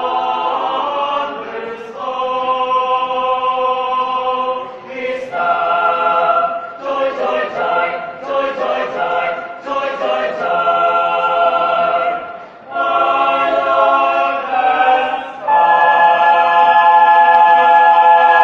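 Choir singing in harmony, moving through sustained chords, then holding a loud final chord over the last few seconds that dies away at the end.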